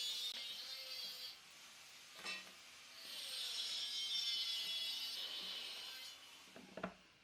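A hand tool rasping against wood in two long spells of about three seconds each, with a short knock between them and a few light clicks near the end.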